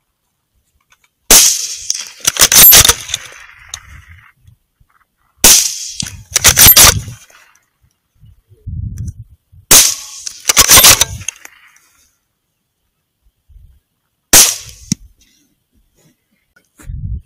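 Four gunshots from a rifle fitted with a thermal scope, about four seconds apart. Each of the first three is followed about a second later by a second burst of sharp cracks.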